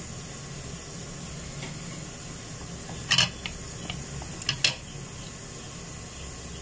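A plastic scoop clacking lightly against the rim of a plastic mixing bowl a few times as batter is scooped out, over a steady background hiss.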